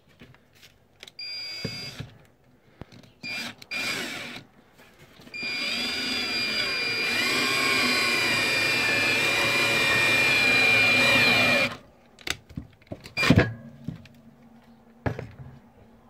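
Power drill driving a coarse-thread screw into wood: a few short spurts of the motor, then a steady whine of about six seconds as the screw is driven home, stopping abruptly. A few sharp knocks follow.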